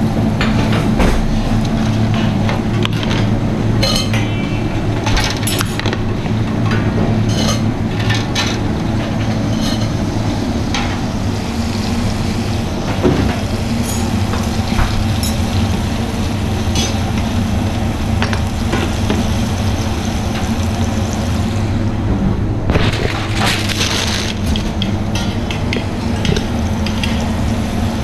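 Busy kitchen sound: food sizzling in pans over a steady low hum, with frequent short clinks and taps of metal utensils on pans, trays and steel counters, a cluster of them about 23 seconds in.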